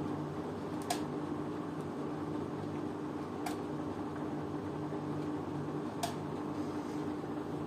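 LG washing machine running near the end of its cotton cycle: a steady hum with a sharp click three times, about every two and a half seconds.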